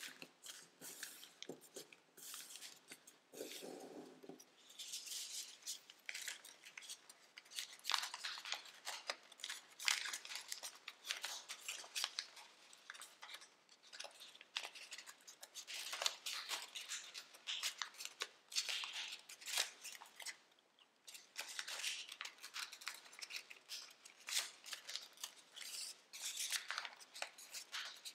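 Sheet of tissue-foil origami paper crinkling and crackling as it is folded and creased by hand, in irregular bursts of rustle with sharp little crackles.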